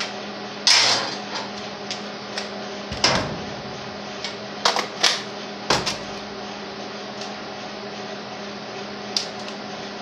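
A string of short metallic knocks and clicks as tools and the grinder's safety-plate parts are handled and set down on a steel workbench, loudest around one, three and six seconds in, over a steady low hum.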